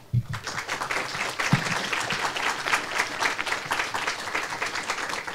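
Audience applauding: many hands clapping together as a steady patter, thinning out a little near the end.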